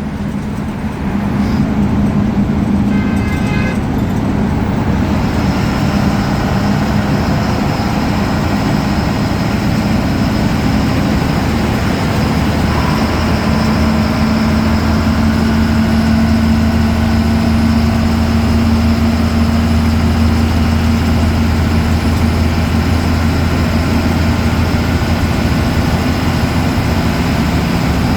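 Ashok Leyland BS4 bus diesel engine running steadily under way, with a thin high turbo whistle that sets in about five seconds in. Its low drone grows stronger about halfway through.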